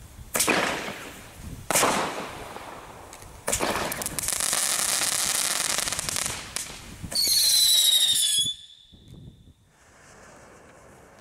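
Bright Star selection-box fireworks: two sharp bangs, then a few seconds of loud crackling hiss, then a high whistle that falls slightly in pitch for about a second. Near the end a ground fountain starts with a steady, faint hiss.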